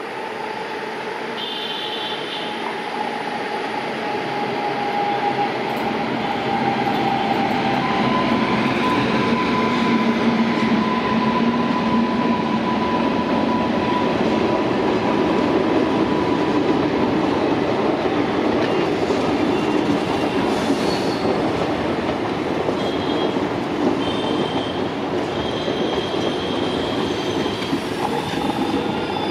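A WAP-7 electric locomotive and its passenger coaches rolling past, with the rumble and clatter of wheels on the rails. It grows louder over the first several seconds as the locomotive comes up, then holds steady as the coaches go by, with a steady high whine over it for several seconds in the middle.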